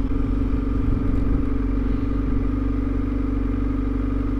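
2021 Kawasaki Z900's inline-four engine idling steadily with a rattling noise that the owner says doesn't sound right.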